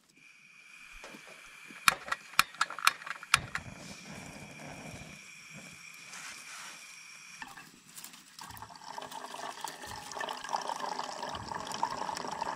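Water trickling and splashing, growing louder in the second half. A few sharp clicks come about two seconds in, and a thin steady high tone runs through the first half.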